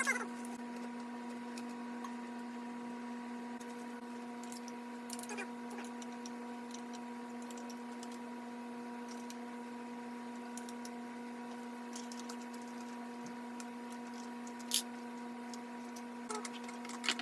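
Steady background hum, with a few faint clicks and one sharper click about fifteen seconds in from seat parts and hardware being handled during the install.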